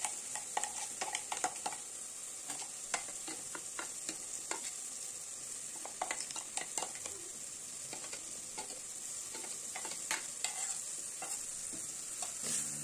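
Onions and tomatoes sizzling in hot oil in a pressure cooker, a steady hiss, with frequent sharp clicks and scrapes of a steel spoon against the steel mixer jar and the pot as ground ginger-garlic paste is scraped in and stirred.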